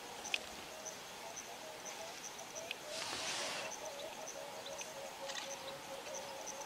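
Insects chirping in the bush, short high chirps repeating at about three a second, over a faint steady hum, with a brief soft hiss about three seconds in.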